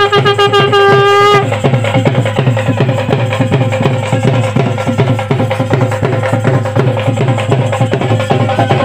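Fast, steady drumming in a traditional style, opening with a long held note that breaks off about one and a half seconds in.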